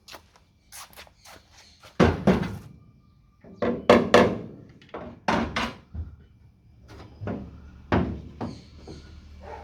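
Hammer tapping on the steel rear quarter panel of a Ford Escort Mk2 to work out a dent: about a dozen irregular knocks, the heaviest about two and four seconds in, each with a short ring.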